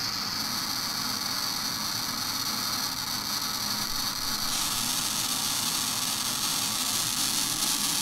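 Small speaker driven by an Arduino Nano through a little amplifier board, playing square-wave tones whose pitch jumps at random between 60 and 500 Hz on every loop, which blend into a steady low noise. The sound grows brighter about four and a half seconds in, as the hand muffling the speaker is lifted.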